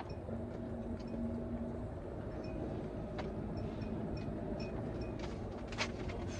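Semi-truck diesel engine running steadily, a low rumble heard inside the cab, with a few light clicks scattered through it.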